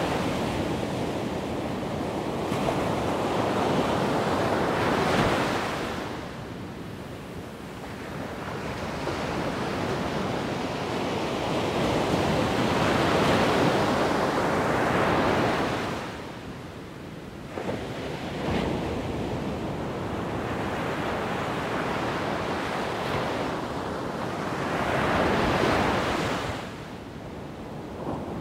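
Wind buffeting the microphone: a rushing noise that swells and eases in gusts every few seconds, with short lulls between.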